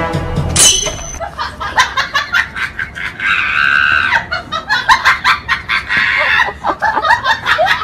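A person laughing in quick repeated bursts, with a longer high-pitched cry a little over three seconds in.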